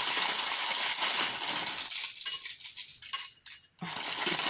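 Thin clear plastic bag crinkling and rustling as it is handled and pulled open, dense and crackly, then dropping away briefly near the end.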